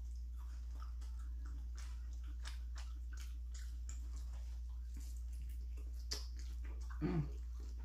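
Close-up mouth sounds of a person biting into and chewing a Philly cheesesteak sandwich: soft wet smacks and clicks, with a sharper click about six seconds in and a short voiced sound like an "mm" near the end, over a steady low hum.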